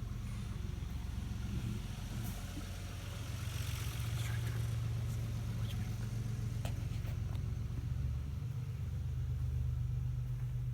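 A steady low hum, with a few faint clicks about two-thirds of the way in.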